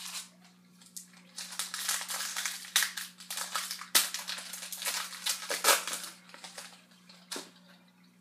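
A foil trading-card pack being torn open and its wrapper crumpled: dense crinkling with several sharp snaps over about six seconds, dying away near the end.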